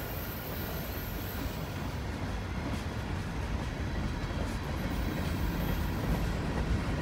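Freight cars of a long mixed manifest train, autoracks and then a boxcar, rolling past: a steady rumble of steel wheels on the rails that grows slowly louder.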